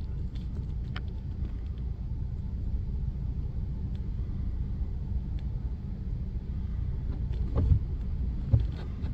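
Vehicle engine idling, a steady low rumble, with a couple of soft thumps near the end.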